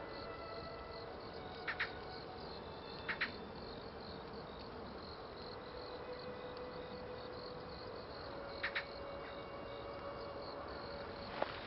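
Insects chirping in an even, continuous pulse, with a short, louder double chirp heard three times.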